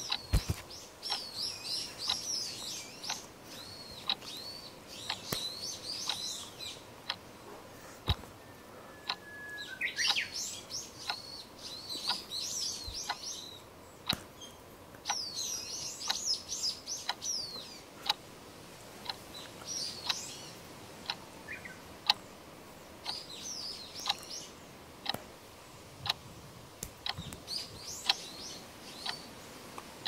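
Birds chirping and twittering in short bursts, over a steady clock-like tick about once a second.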